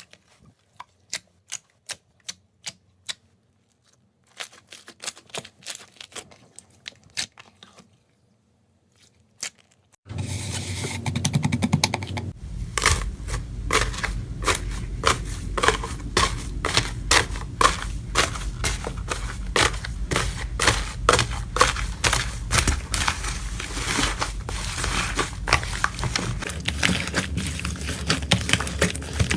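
Slime being squeezed and poked in the hands, giving sharp clicking pops. For about the first ten seconds they come singly, about two a second; after that comes a dense, steady crackling with many clicks on a low rumble.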